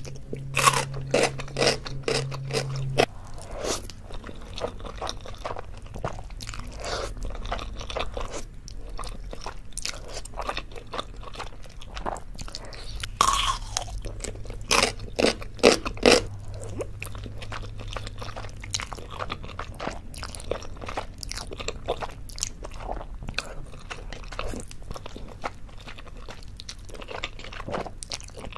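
Close-miked crunching bites and chewing of yellow pickled radish (danmuji), with the loudest crunches about 13 to 16 seconds in. Near the end comes chewing of a mouthful of saucy instant noodles.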